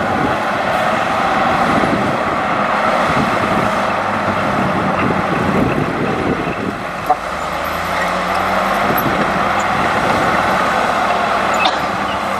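Heavy diesel construction machinery (excavator and dump trucks) running steadily, with a couple of brief sharp clicks.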